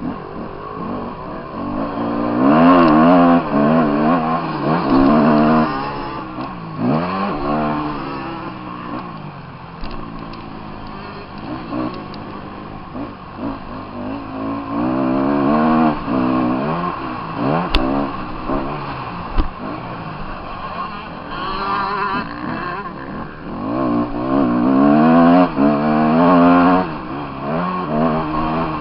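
Motocross bike engine revving up and falling back again and again as the bike accelerates, shifts and slows around the track, heard from a helmet-mounted camera. It is loudest in two long pulls, one a few seconds in and one near the end.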